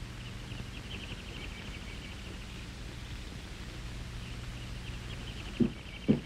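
Crickets chirping in fast trills, over a steady low mains hum from the old soundtrack. Two thuds come near the end.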